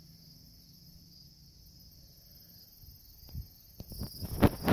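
Steady high-pitched insect chorus, typical of crickets at dusk. Near the end it is broken by a few rustling knocks.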